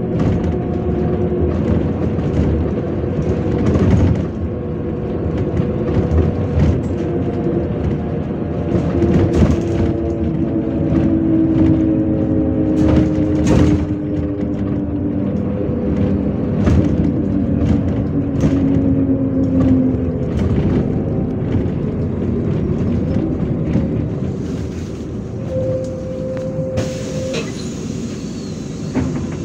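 Ride inside a MAZ-103 city bus: its engine and drivetrain run under the floor, with pitches that slowly fall, over constant knocks and rattles from the body on the road. Near the end it grows quieter and a steady hiss sets in.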